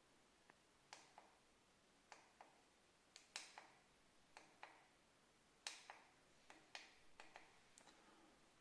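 Faint sharp clicks, many in close pairs, coming irregularly about once or twice a second.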